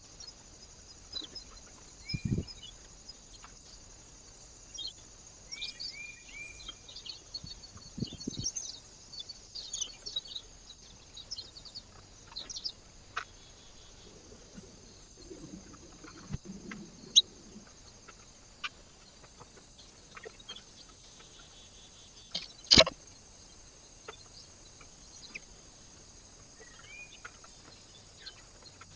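Small birds chirping and calling at a feeder in short, scattered notes, busiest in the first third, with a few brief repeated whistled notes. Occasional soft knocks and one sharp, loud click about two-thirds of the way through, over a steady faint hiss.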